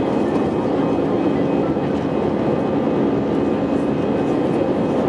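CFM56 turbofan engine of an Airbus A320 running at high power during the climb-out, heard inside the passenger cabin over the wing: a steady, loud rush of noise with a steady low hum running through it.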